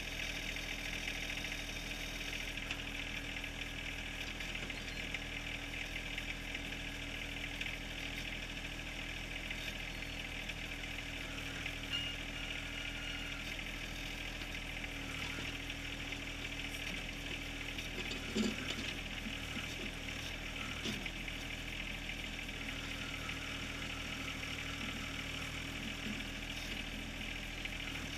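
John Deere 1023R compact tractor's small three-cylinder diesel running steadily while working a backhoe, with two short sharp knocks a few seconds apart about two-thirds of the way through.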